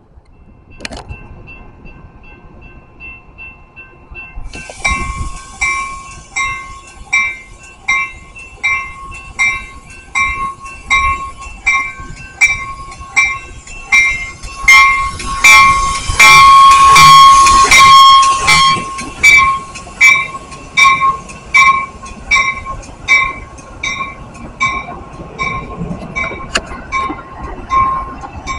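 A grade-crossing warning bell rings steadily at about three strikes every two seconds as a Metra push-pull commuter train pulls in, cab car leading. Near the middle the train's horn sounds loudly for about four seconds, then the bi-level cars roll past.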